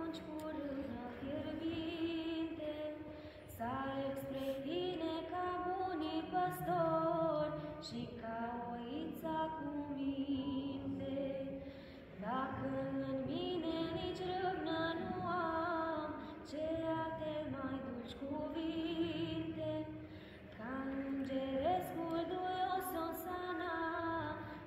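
A small group of mostly women's voices singing a Romanian Christmas carol (colind) together, unaccompanied. It moves in long held phrases with short pauses between them.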